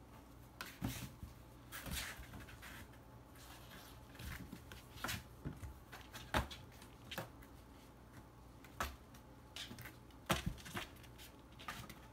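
Kittens playing in and around a cardboard box: irregular taps, scratches and rustles of paws and claws on cardboard and a hardwood floor.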